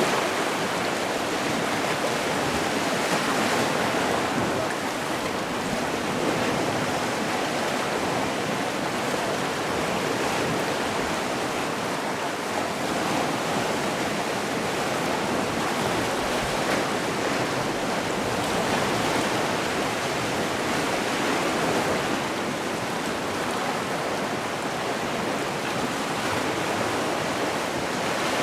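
Gentle sea surf: a steady wash of waves with small, slow rises and falls in level.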